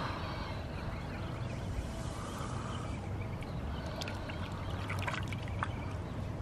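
Hands lowering a largemouth bass into shallow pond water: soft, steady trickling and sloshing of water, with a few faint ticks.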